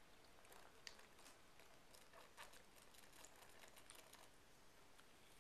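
Near silence with faint, scattered small clicks: swallowing sounds from someone gulping a drink from a bottle.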